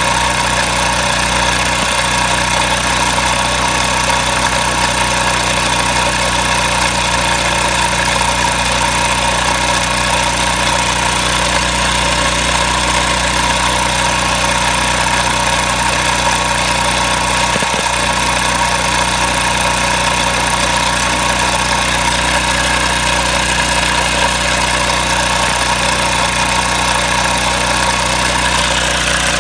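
Small propane-fuelled engine fitted with a GEET fuel processor, idling steadily at an even speed.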